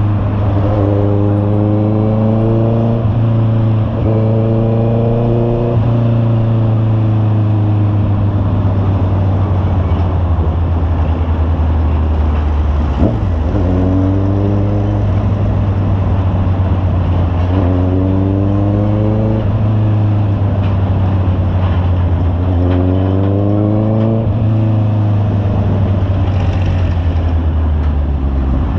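Honda CB650R's inline-four engine running through an aftermarket Imba muffler while riding, its pitch rising repeatedly under acceleration and dropping back at each gear change, over a steady deep rumble.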